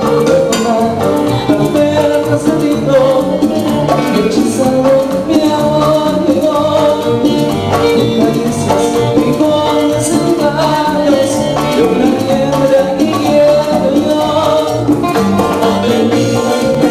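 Live Latin dance band playing a steady, loud cumbia-style groove, with electric bass, melodic lines and percussion.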